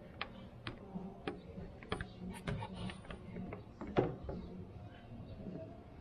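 Scattered light clicks and creaks from a large plastic syringe as its plunger is pushed to force gear oil into an ATV's front differential fill hole, with a sharper knock about four seconds in.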